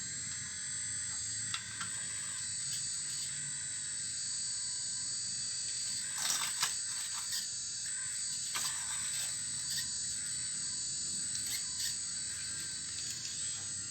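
Full-metal RC excavator working, a steady high-pitched whine from its drive running throughout, with a few sharp clatters of the metal bucket against rock about halfway through.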